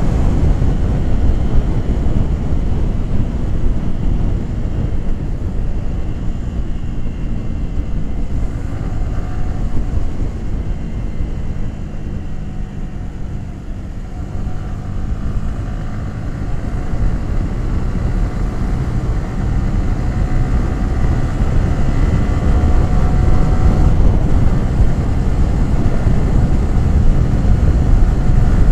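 Yamaha R15 V3's 155 cc single-cylinder engine and exhaust running while the bike is ridden, under heavy wind rush on the microphone. The engine eases off a little past the middle, then pulls again and grows louder toward the end.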